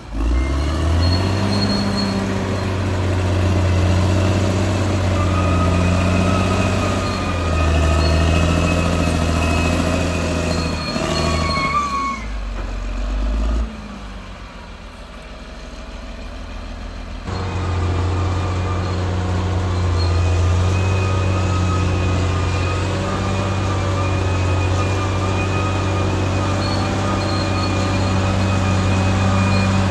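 Caterpillar D6R XL bulldozer's diesel engine running steadily under work, with a thin high whine over the low engine note. About halfway through, the sound drops away for a few seconds, then comes back as before.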